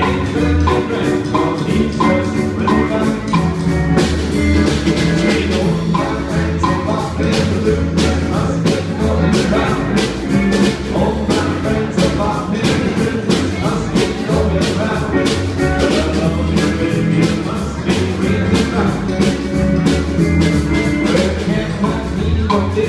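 Live rock and roll band playing: upright double bass, drum kit and electric guitar, with a steady drum beat.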